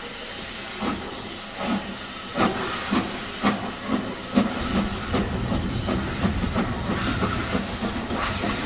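Steam tank locomotive pulling away, its exhaust chuffs quickening from about one a second to two or three a second over a steady hiss of steam.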